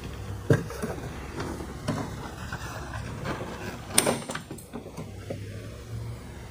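Toyota Camry door trim panel being pulled off the door, its plastic retaining clips snapping loose with two sharp snaps, about half a second in and about four seconds in, amid scraping and rattling of the panel.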